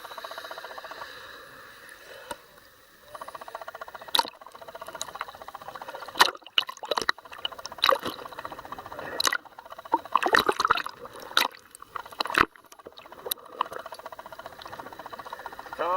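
Scuba divers' bubbles gurgling underwater, with irregular sharp clicks and crackles over a fluctuating hiss.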